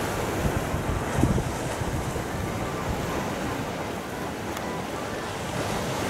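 Sea surf breaking and washing over a pebble beach, a steady rushing noise, with wind rumbling on the microphone.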